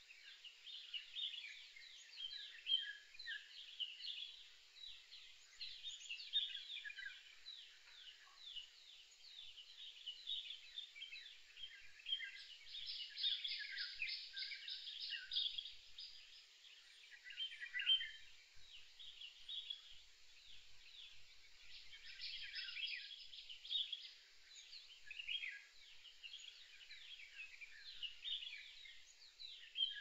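Several wild songbirds chirping and singing at once in a dense, overlapping chorus. A rapid high trill joins in twice, about twelve seconds in and again about twenty-two seconds in.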